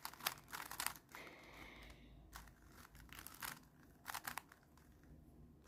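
Plastic Rubik's cube being turned by hand during the F2L stage of a solve: faint quick runs of clicks from the turning layers, in several short bursts with brief pauses between.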